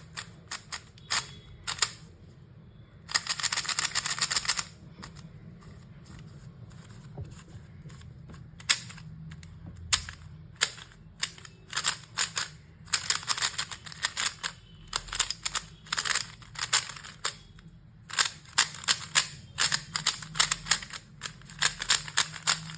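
MoYu RS3M 2021 Maglev magnetic 3x3 speed cube being turned by hand: rapid clicking layer turns in quick flurries, with scattered single clicks and short pauses between.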